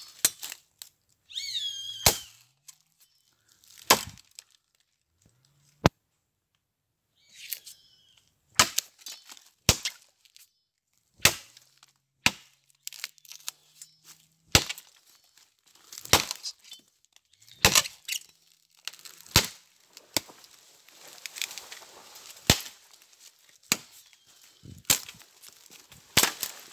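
Machete chopping through the soft trunk of a young jonote tree: about twenty sharp blows, one every second or two, coming faster in the second half.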